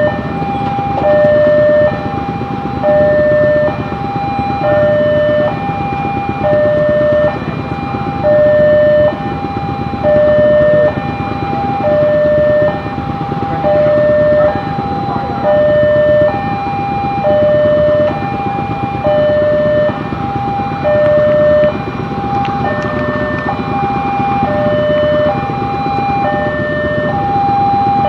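Railway level-crossing warning alarm sounding continuously: two tones alternating high and low, each held about a second, with the barrier down for an approaching train. A steady haze of road noise sits underneath and fills in more in the last few seconds.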